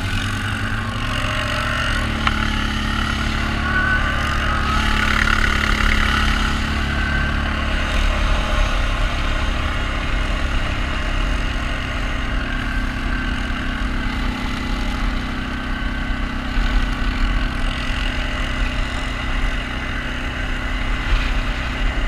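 Engine of an off-road vehicle running steadily, loud and continuous, without a break.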